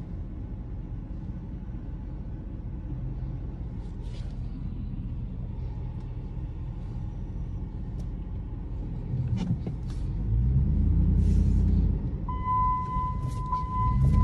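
Ram 1500's 5.7-litre Hemi V8, heard from inside the cab: a low, steady rumble while the truck rolls, then the engine note climbs and gets louder as it accelerates about ten seconds in. Near the end a steady high beep starts and holds.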